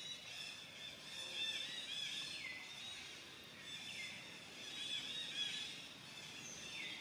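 A chorus of high-pitched animal calls repeating in waves, with a few calls gliding down in pitch.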